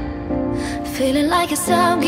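Background pop music with a woman singing a wavering melody over a sustained low note.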